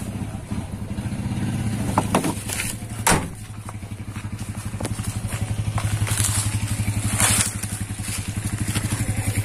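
Mercedes-Benz 1417 truck's diesel engine idling steadily as it warms up, with two knocks about two and three seconds in.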